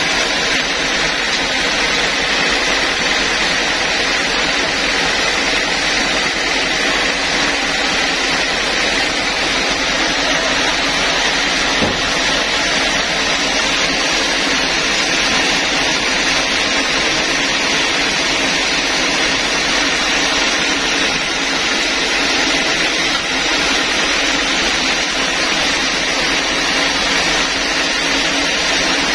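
Band sawmill running with a steady, even noise and a faint high whine.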